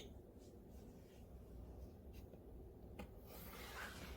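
Near silence, with a faint click about three seconds in followed by a soft rustle: a book page being turned.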